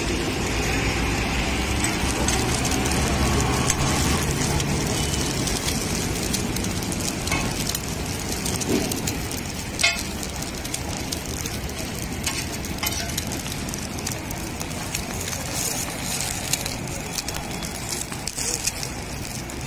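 An egg paratha sizzling in oil on a large flat iron tawa, a steady crackling fry, with street traffic behind it. A few sharp clicks, the clearest about halfway through, come from the metal spatula on the griddle.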